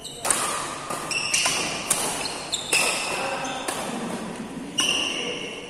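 Badminton doubles rally: rackets smacking the shuttlecock back and forth, sharp hits about a second apart, with court shoes squeaking on the floor between shots, echoing in a large hall.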